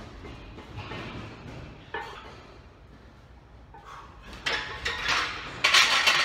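Barbells and iron weight plates clanking against steel squat racks: scattered light knocks at first, then a loud run of metallic clatter over the last two seconds.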